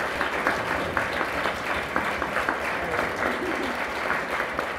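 Audience applauding: many hands clapping steadily at the end of a speech.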